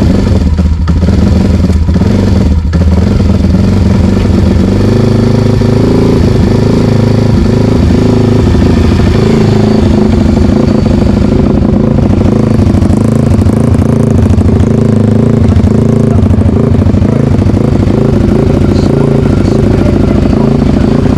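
Pit bike engine running loudly and steadily, its pitch shifting a little now and then, while the newly adjusted clutch and gear shift are tried out.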